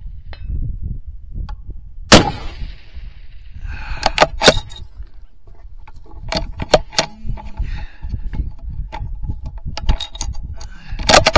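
A single rifle shot about two seconds in, with a short echo after it, followed by a run of sharp clicks and knocks over the next seconds. Wind buffets the microphone throughout.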